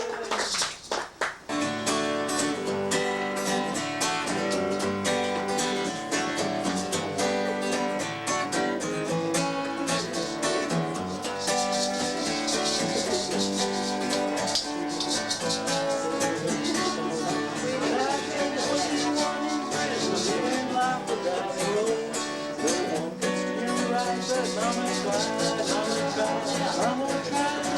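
Strummed acoustic guitar music in a folk style, with a steady run of strums.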